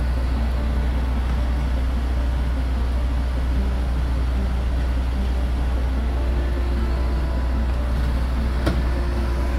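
Fire engines running at the scene, a steady low rumble with no change in pitch. A single faint click sounds near the end.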